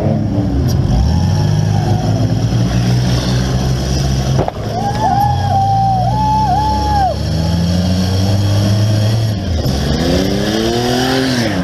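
Minivan engine running and revving hard, its pitch climbing and falling, heard inside the stripped cab. A single sharp knock comes about four and a half seconds in, followed by a high wavering whine for a couple of seconds, and the engine revs up strongly near the end.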